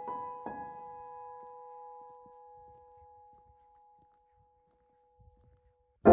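Solo piano background music. A last note is struck about half a second in and rings out, fading to near silence, then a loud new chord comes in right at the end.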